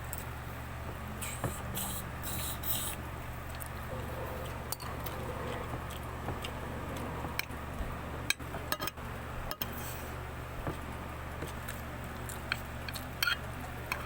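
Scattered light clinks and scrapes of dishes and cutlery over a steady low hum, with a few sharper clicks in the middle and near the end.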